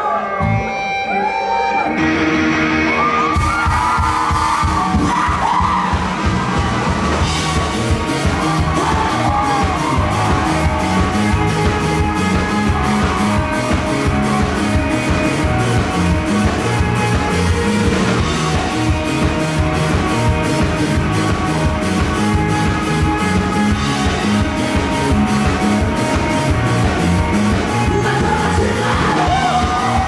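Rock band playing live through a large PA, with electric guitar, bass and drums. It starts sparse and comes in with a full, steady beat about three seconds in. Vocals and shouts from the crowd ride over it.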